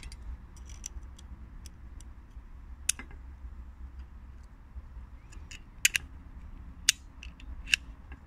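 Small metal clicks from a vintage Soviet pocket lighter as its lid and mechanism are worked by hand: one sharp click about three seconds in and three more in the second half, with faint ticking between, over a low steady rumble.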